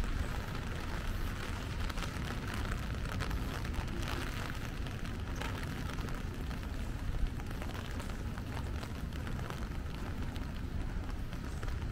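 Steady rain falling on an umbrella overhead: a dense hiss of small drop ticks over a low, constant rumble.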